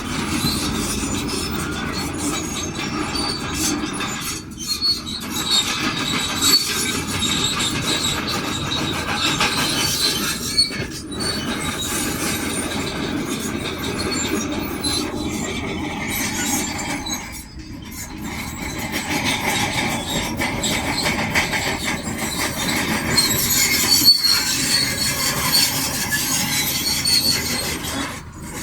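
Shantui DH17C2 crawler bulldozer working, its engine running under the high metallic squeal and clatter of its steel tracks. The sound drops away briefly several times.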